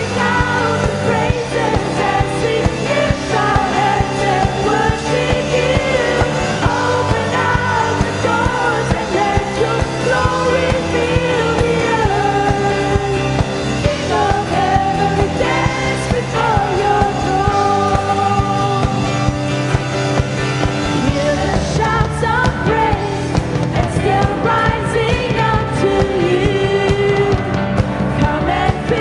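Worship band music with a lead vocal singing a melody over sustained chords and a steady drum beat.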